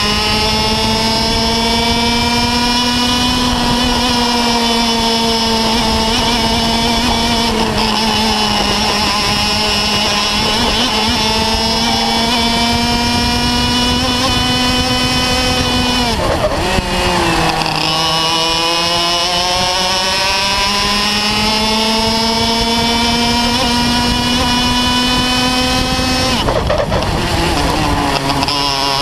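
Two-stroke Parilla kart engine at racing speed, heard on-board: a high, steady buzz whose pitch drops sharply about halfway through and again near the end as the driver lifts off for corners, then climbs back up as he accelerates out.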